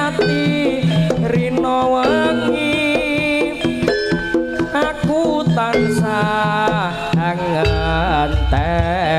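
Live jaranan music played through a large sound system: kendang hand drumming under a gliding, ornamented melody line. A deep bass comes in near the end.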